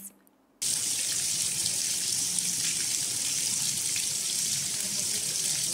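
Heavy rain pouring down on a stone-paved courtyard, a steady hiss that starts about half a second in.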